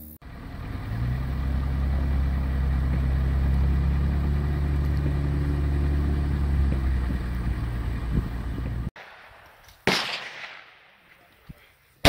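A vehicle driving, a steady low drone for about nine seconds that then cuts off. Then two gunshots from a shooting range about two seconds apart, the second louder and right at the end.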